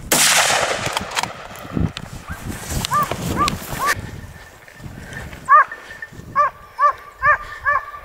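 A single gunshot at the start, its report trailing off over about a second. From about three seconds in, a dog gives short, repeated yelping barks, two or three a second, as hunting dogs bay on a boar's track.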